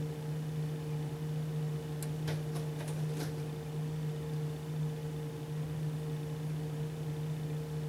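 A steady low mechanical hum at an even level, with a quick run of four or five faint clicks about two to three seconds in.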